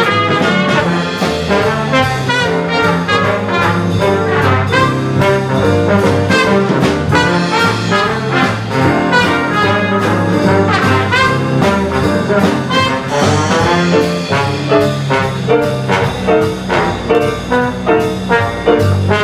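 Live big band playing jazz: a brass section of trumpets and trombones over piano and drums, with a steady beat.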